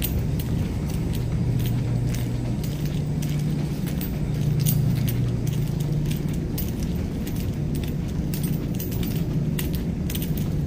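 Small metal items jingling with many light, irregular clicks, carried on a person walking, over a steady low rumble.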